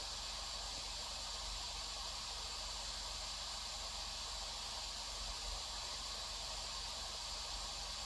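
Khadas Mind 2 mini PC's cooling fan running: a steady, high-pitched airy hiss. It is a little noisy, typical of the Core Ultra 7 155H running hot.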